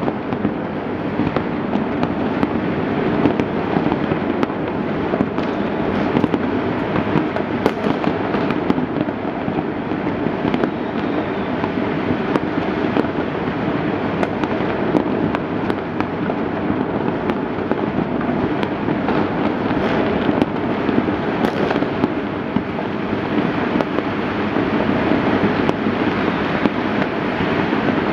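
Many firecrackers and fireworks going off all over the city at once: a dense crackle of pops and bangs without a break.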